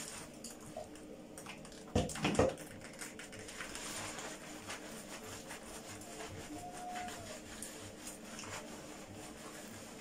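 Hands scrubbing shampoo lather through wet curly hair: a soft, wet squish with many small crackles from the foam. Two short thumps about two seconds in.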